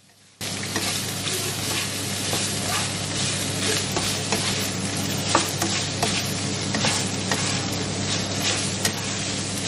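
Diced chicken breast sizzling in oil in a frying pan while it is stirred and scraped with a slotted spatula, with frequent small scrapes and clicks over the steady sizzle. It starts abruptly about half a second in.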